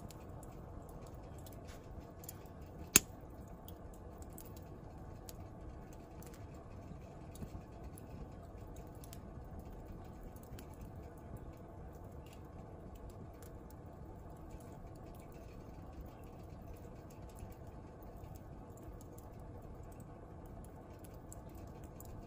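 Wood fire burning, with scattered small crackles over a steady low background noise and one sharp, loud pop about three seconds in.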